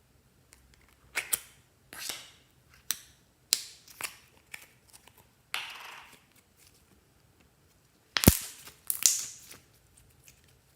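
Clear slime being pressed and stretched by hand, giving a string of irregular sharp pops and crackles as air pockets burst; the loudest pops come near the end.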